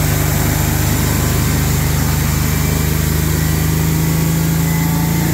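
1999 Ford F-150's 4.2-litre V6 idling steadily on its own, with a slight shriek that the owner puts down to a throttle body in need of cleaning, and the exhaust sounding through a muffler due for replacement.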